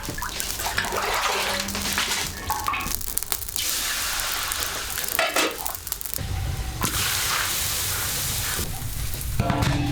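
Kitchen cooking sounds in several short cuts, with a steady hiss in parts and a low rumble starting about six seconds in.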